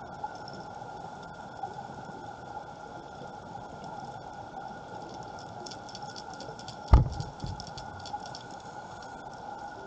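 Underwater ambience on a reef: a steady hiss with a hum, and a run of crackling clicks for about three seconds in the middle. About seven seconds in, a fish bumps into the camera housing with one loud thump.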